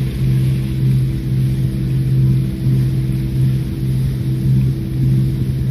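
Canal cruiser's inboard engine running steadily, a constant low hum.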